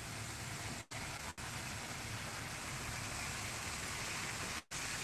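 Breaded whole chicken frying in hot oil in a pan: a steady sizzle and crackle of bubbling oil while the chicken is lifted out with tongs. The sound cuts out for an instant twice about a second in and once near the end.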